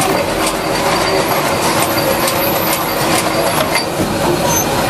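Industrial machinery running loudly and steadily, a dense mechanical clatter with frequent sharp clicks and brief high-pitched metallic squeals.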